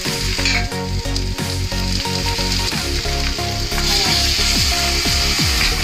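Vegetables sizzling in a hot steel kadai. The sizzle grows louder about two-thirds of the way in, as tomato purée is poured onto them.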